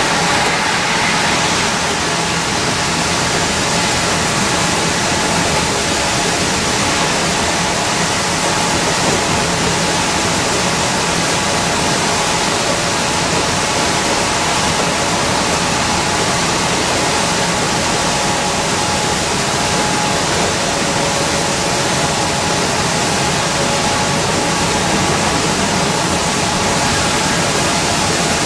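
Steady road noise inside an Orion V transit bus cruising on a wet highway: tyres hissing through water on the pavement, with a faint steady hum from the bus underneath.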